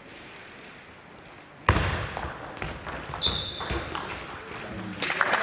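Table tennis rally: a celluloid-type ball being struck by paddles and bouncing on the table, starting suddenly after a quiet serve. There is a short high squeak about three seconds in. Clapping and voices start near the end as the point is won.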